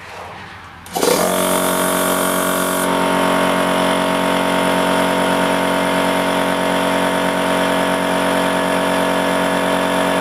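Goodyear 20-gallon oilless air compressor, its pump belt-driven by a separately mounted electric motor, starting up about a second in and then running steadily with an even hum and clatter.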